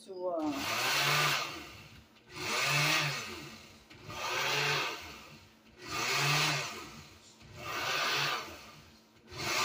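Countertop glass-jar blender pulsed on a low setting in about six short bursts, each about a second long, its motor spinning up and down each time as it mixes cream cheese with an egg.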